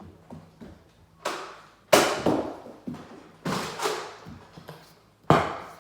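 Four sharp thuds spread over several seconds, the second and last the loudest, each dying away quickly: shots from a toy shotgun that fires balls.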